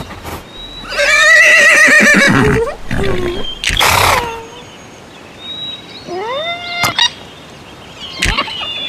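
A horse's whinny sound effect: a loud, wavering neigh, followed about a second later by a shorter, breathy snort. Near the end come a few rising sound-effect glides that end in a sharp click, and another click.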